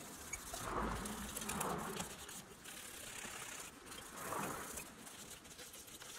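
Sandpaper rasping against a painted sheet-metal toy car body in a few soft, separate strokes, with light clicks of the metal body being handled on a wooden bench.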